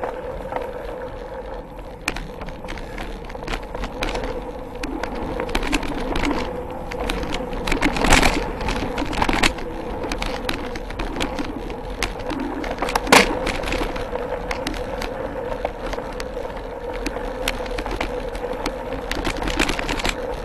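Mountain bike rolling over a dirt trail, heard through a camera mounted on the bike: tyres on dirt, the chain and parts of the bike rattling, with frequent small knocks and two sharp, louder jolts about 8 and 13 seconds in as it hits bumps. A steady hum runs underneath.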